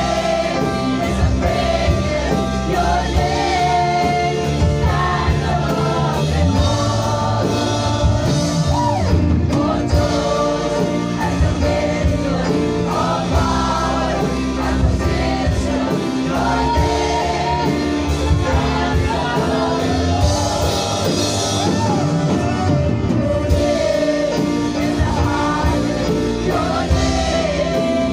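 Live worship band music with singing, a drum kit and cymbals played steadily throughout.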